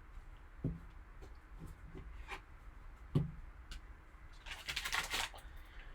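Trading cards being handled: a few soft taps and clicks, then a brief rustle of cards sliding against each other about three quarters of the way through.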